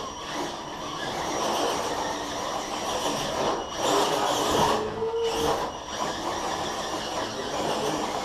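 Side-by-side UTV engines running, a steady mechanical drone that swells and eases, with a faint high whine.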